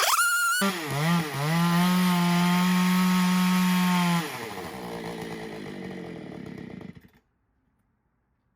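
Jonsered 670 two-stroke chainsaw revving up and holding a steady high pitch at full throttle for a few seconds. About four seconds in it drops off the throttle, running lower and more unevenly, until the sound cuts off about seven seconds in.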